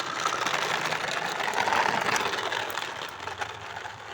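Plastic toy truck rolling forward, its wheels and body giving a dense rattling clatter that swells and then fades toward the end.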